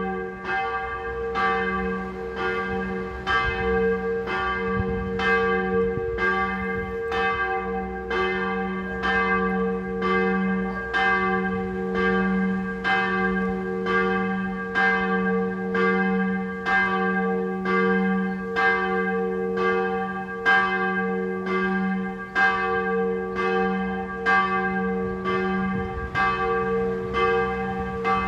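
Church tower bell ringing steadily: even strikes about every three-quarters of a second over a sustained ringing hum.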